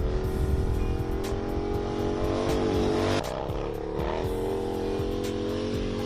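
Harley-Davidson Street Bob's cammed V-twin running through a Fab 28 two-into-one stainless exhaust, holding a steady note and then revving up about three seconds in. A music track plays underneath.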